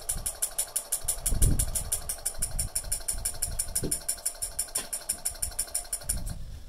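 DH48S-S 24 V timer relay switching at its fastest 0.1-second setting, clicking rapidly at about ten clicks a second, over a steady whine from the power supply feeding the switched load. Two dull low thumps come about a second and a half in and about four seconds in, and the clicking stops near the end.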